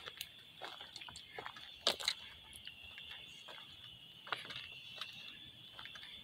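Irregular crunching footsteps on gravel, the strongest about two seconds in, over a steady high chirring of insects.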